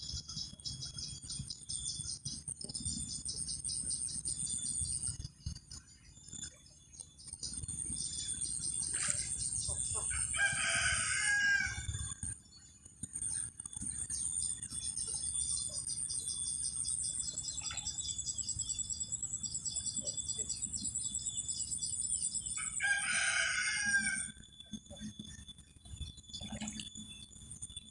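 A rooster crowing twice, about twelve seconds apart, over a steady high chirring of insects.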